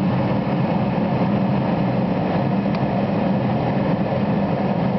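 Steady cabin noise of a jet airliner cruising at altitude: an even, low rushing hum of engines and airflow, heard from inside the cabin.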